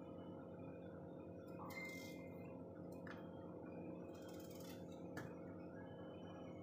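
Faint sounds of a knife slicing peeled raw potatoes, with a couple of sharp clicks about three and five seconds in, over a steady low hum.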